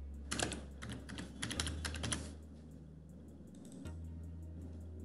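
Typing on a computer keyboard: a quick run of key clicks over the first two seconds or so, then a pause.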